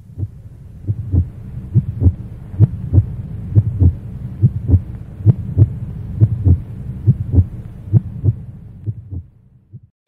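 Heartbeat sound effect: steady lub-dub double thumps, about one pair a second, over a low hum, fading and stopping near the end.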